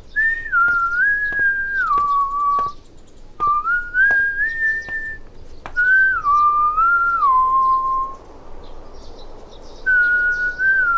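A person whistling a tune in short phrases of a few held notes, each phrase stepping down in pitch at its end, with short pauses between phrases. Faint clicks tick along at a steady pace underneath.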